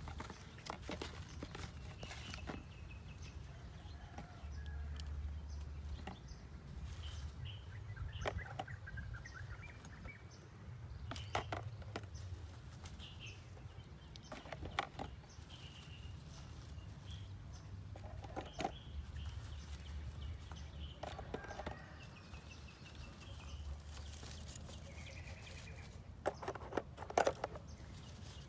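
Duck eggs being picked out of a ground nest and set into a plastic bowl, with scattered knocks and clicks as shells touch the bowl and each other, over rustling in dry leaves. Short bird calls come and go, with the loudest handling knocks near the end.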